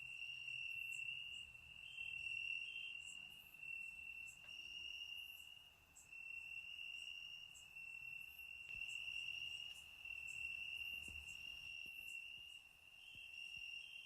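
Crickets chirping: a steady high trill that swells and fades every second or two, with faint, higher, short chirps over it.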